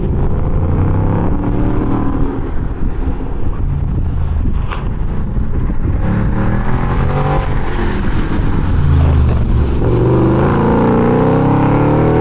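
Ford Mustang GT's 5.0 Coyote V8 driven hard through an autocross course, its engine pitch rising and falling again and again as it accelerates and lifts between cones.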